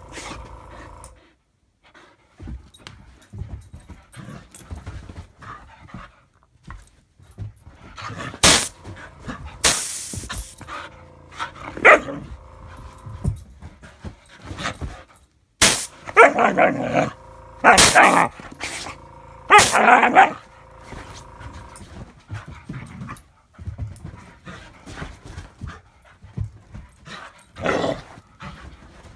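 Husky barking and yowling in scattered outbursts, with a run of three long, loud ones midway, in protest at an air compressor.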